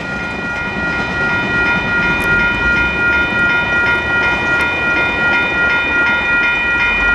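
Level crossing warning bell ringing rapidly and steadily, about three strokes a second, while the boom barriers lift after the train has cleared. Under it, the rumble of the train moving away along the track.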